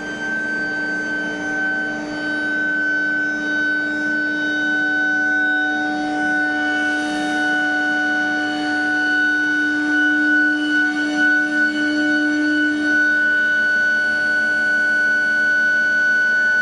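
IGBT medium-frequency induction melting furnace running under power, giving a loud steady high-pitched whine with several lower steady tones beneath it. The lowest tone fades out about thirteen seconds in, and there is a brief hissing noise about seven seconds in.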